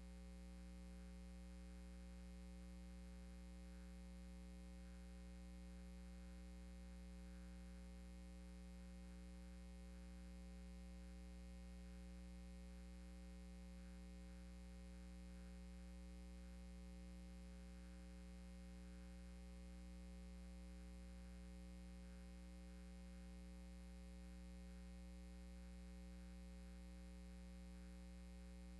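Near silence apart from a steady low electrical mains hum with a faint hiss underneath, unchanging throughout.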